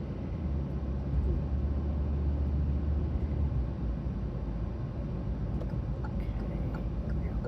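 Car engine and road noise heard from inside the cabin while driving: a steady low rumble, a little heavier in the first half.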